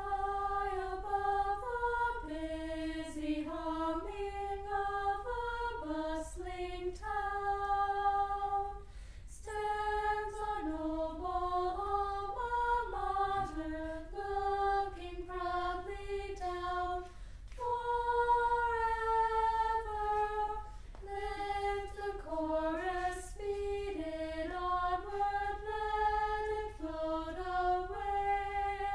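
Unaccompanied singing: a single high melody line, voice only with no instruments, moving note by note in phrases with brief breaks between them.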